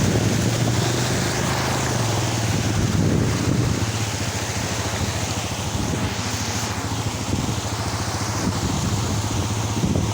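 Engine of a moving vehicle running steadily with a constant low hum, with wind rushing over the microphone.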